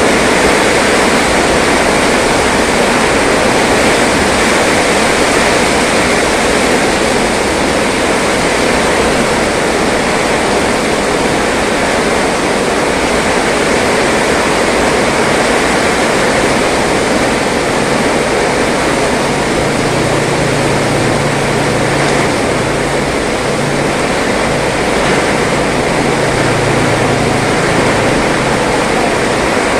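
Heavy tropical rain pouring down, a dense, steady hiss of rainfall on the road and roofs.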